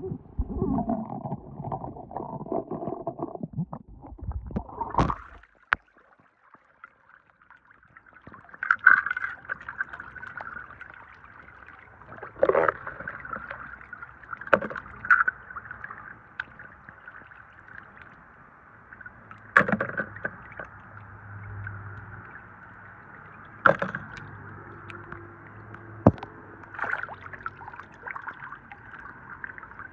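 Toy cars being washed by hand in a basin of water: sloshing and dripping over a steady water noise, with sharp clacks every few seconds as the toys knock against the basin or each other.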